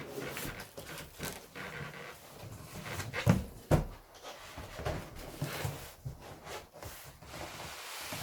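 A large cardboard box and its packing being handled and shifted: scraping and rubbing with irregular dull knocks. The two loudest thumps come about three and a half seconds in.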